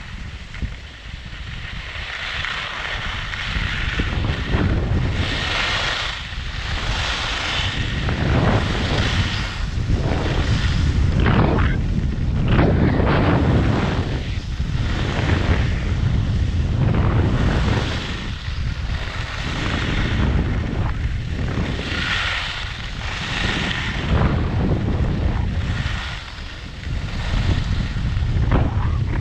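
Wind rushing over the GoPro's microphone during a fast ski descent, a heavy steady rumble. Skis carve turns on freshly groomed snow, their edges hissing in swells that come and go every second or two.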